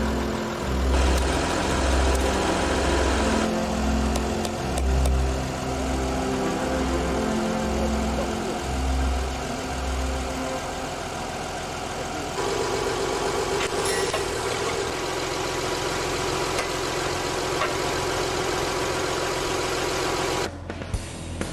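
Tractor engine running steadily, with a low pulse about once a second through the first half; the sound changes about twelve seconds in and drops away sharply near the end.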